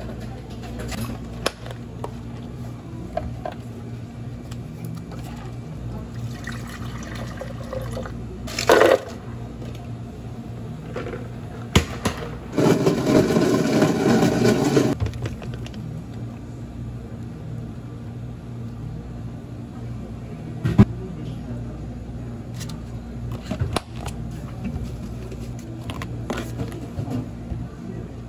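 Work sounds behind a coffee bar: scattered clinks and knocks of cups and utensils over a steady low hum, with a rush of running water for a couple of seconds near the middle, the loudest sound.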